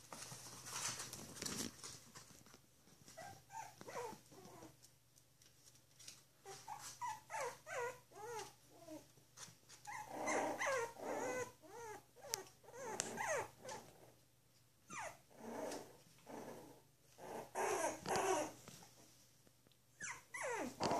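Five-week-old bichon frise puppies at play, giving many short, squeaky little growls and yips that rise and fall in pitch, with a few light clicks.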